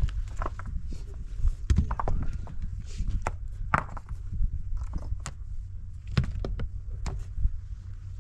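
Irregular knocks and thuds at uneven intervals over a steady low rumble.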